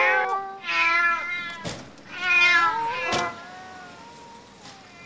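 Drawn-out cat yowls and meows, three cries that rise and fall in pitch, broken by two sharp knocks; the cries stop about three seconds in.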